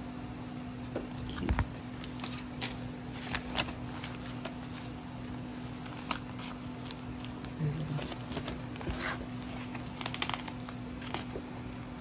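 Rustling and light taps of glossy photo cards and clear plastic binder sleeves being handled, as a large photo card is slid into a sleeve pocket, over a steady low hum.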